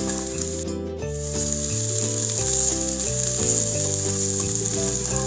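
Spiced potato-and-pea samosa filling sizzling as it fries in a stainless-steel pan, with background music of sustained, changing chords underneath. The sizzle cuts out briefly about a second in.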